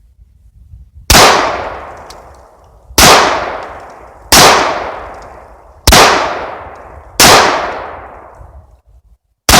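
Taurus 1911 pistol fired six times at a slow, steady pace, roughly one shot every one and a half seconds. Each shot is very loud, with a long fading ring-out after it. The pistol is shooting a handload of 6.3 grains of AutoComp powder.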